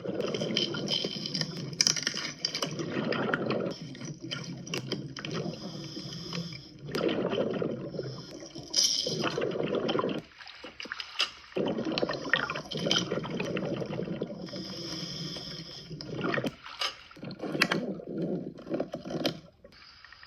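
Scuba regulator breathing underwater: a hissing draw on the regulator alternates with bubbling, gurgling surges of exhaled air, in cycles of a few seconds with brief pauses between breaths.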